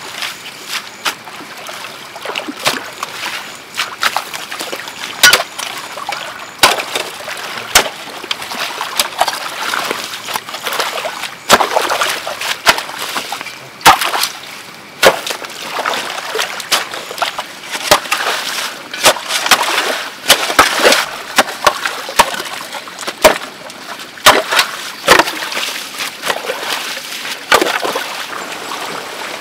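Steel shovel chopping into wet mud and scooping muddy water in a shallow flooded ditch: irregular scrapes, knocks and splashes, many in a row, over flowing water.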